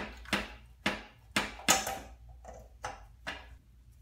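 Metal knocking at the stock exhaust of a Yamaha FZ-09 as it is worked loose from the header pipes: about eight sharp knocks, two to three a second, each ringing briefly, loudest about halfway through and fainter after that.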